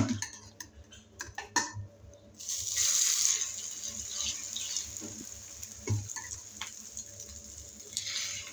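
A few clinks of spoon on bowl, then about two seconds in a beaten-egg omelette mixture with chopped onion and chilli hits a hot, oiled flat griddle pan (tawa) and sizzles loudly at once, settling into a steady sizzle. There is a single knock about six seconds in.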